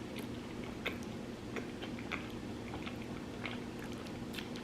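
A person chewing food with irregular small wet mouth clicks, over a faint steady low hum.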